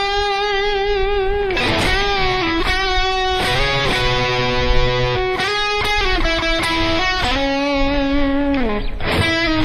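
Electric guitar playing a lead riff in C-sharp minor. It opens on a held note with vibrato, then moves through string bends, two-string double stops and slides, with a falling slide near the end.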